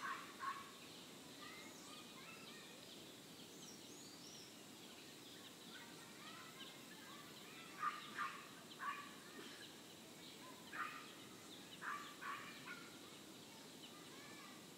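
Birds calling faintly, short calls coming in small groups with a few higher chirps between them, over a steady low hiss.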